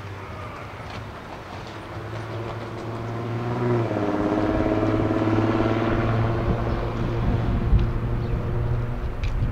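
A vehicle engine hum passing close by, dropping in pitch a little under four seconds in as it goes past, then a louder steady low rumble.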